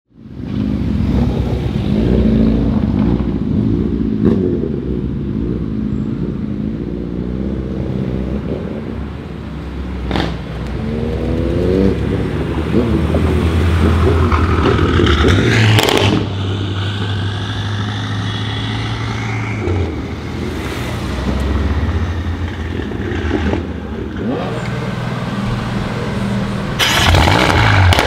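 BMW M5 F90's twin-turbo 4.4-litre V8 on a loud straight-pipe exhaust, revving and pulling away, its note rising and falling. A few sharp exhaust crackles come through, and a louder rev near the end.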